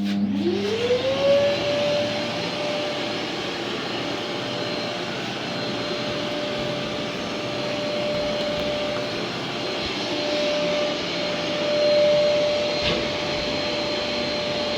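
Festool vacuum (dust extractor) switched on: its motor spins up with a whine rising over about a second and a half, then runs steadily with a rush of air.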